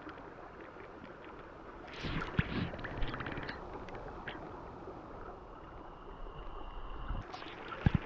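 Mountain stream water heard from underwater: a muffled, steady rush with scattered sharp clicks and knocks, a cluster of them about two to three and a half seconds in and a sharp pair near the end.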